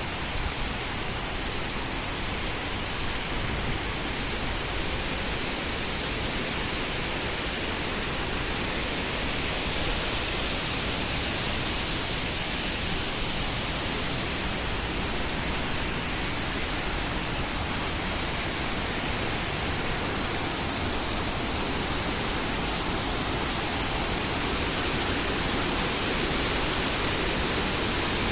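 Fast-flowing water rushing steadily, as from a stream or waterfall, with no pauses or changes.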